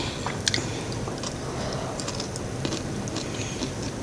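A person chewing microwaved M&Ms, with a few short crunching clicks.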